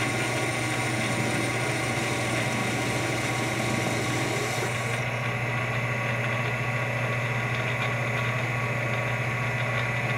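Metal lathe running under CNC control, a boring bar cutting the bore of a 12L14 steel part: a steady motor and gear hum with a higher hiss that drops away about halfway through.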